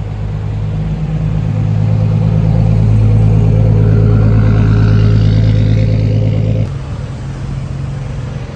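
Car engine running loudly at a steady pitch, swelling over the first couple of seconds, then dropping off sharply and settling lower near the end.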